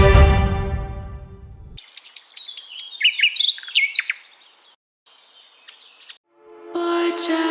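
Background music fades out, then a wild bird sings a run of quick, high chirps that step downward in pitch for about three seconds. After a short near-silence, music comes back in near the end.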